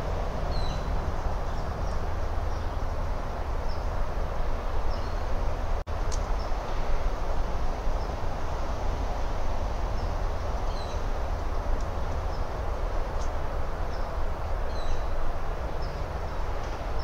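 Steady outdoor rushing rumble with small birds giving short, high chirps here and there throughout. The audio drops out for an instant about six seconds in.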